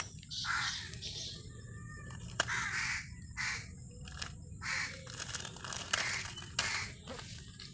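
Crow cawing again and again, harsh short calls in quick succession, with a few sharp clicks between them.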